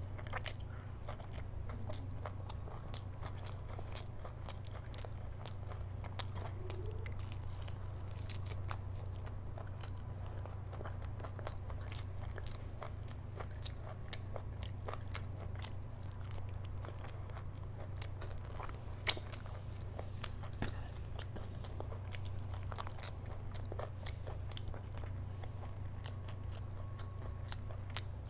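Close-miked eating: biting and chewing curried mutton off the bone with fingers and rice, many small sharp clicks and crunches in no set rhythm. A steady low hum runs underneath.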